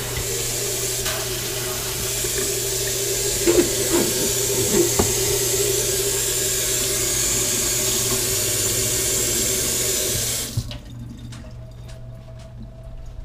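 Kitchen tap running into an empty stainless steel sink as the basin is rinsed out, with a few light knocks about four seconds in. The water shuts off abruptly near the end, leaving faint handling sounds.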